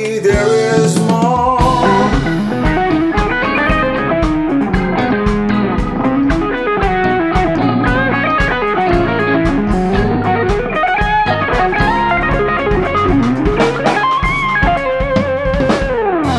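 Funk band playing an instrumental passage: electric guitar lines over electric bass and a drum kit, with a long downward pitch slide near the end.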